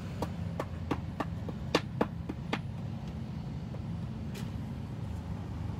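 A rubber mallet tapping a joint strip down into a concrete expansion joint: about eight quick, sharp taps in the first two and a half seconds, then one more near the end, over a steady low hum.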